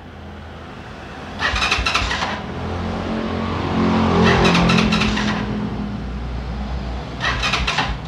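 Motorcycle electric starter cranking the engine in three bursts, the engine turning over without catching: a hidden kill switch is cutting the ignition signal from the pulser.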